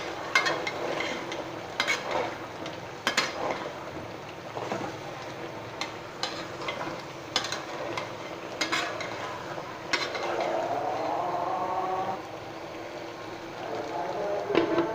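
Food frying and sizzling in a pan while a spatula stirs it, knocking and scraping against the pan every second or so. A short rising tone sounds about ten seconds in and again near the end.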